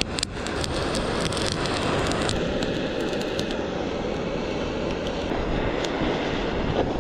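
Handheld butane blowtorch flame hissing steadily as it sears fish, with a few sharp crackles in the first second.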